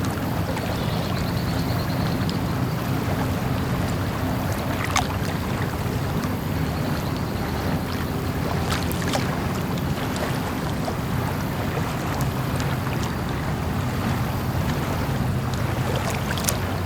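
Lake ambience: a steady wash of water and wind noise under a low, even rumble, with a few faint sharp ticks scattered through it.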